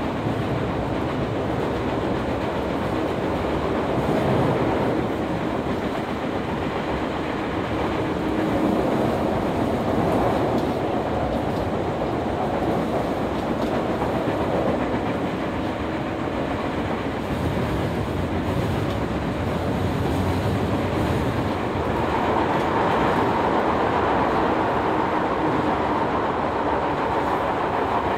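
Running noise heard inside a chopper-controlled Toei 10-000 series subway car travelling through a tunnel: a steady rumble of wheels on rail with clickety-clack over the rail joints.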